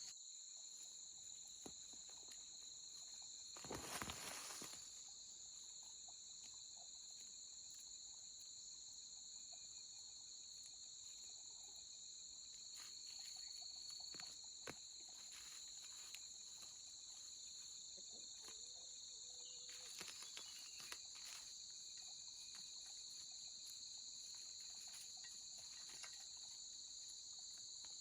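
Insects chirring steadily as a constant high drone at two pitches, with a short burst of noise about four seconds in and a few faint clicks.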